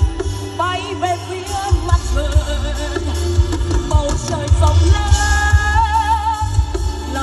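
Music with a wavering vibrato melody line over a heavy bass and regular drum beats, from a Vietnamese song played as a loudspeaker demo.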